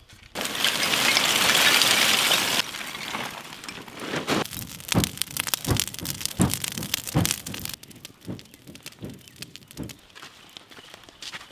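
Charcoal fire, lit with coconut husks, crackling and popping, with a loud rushing hiss in the first couple of seconds; the crackling turns fainter near the end.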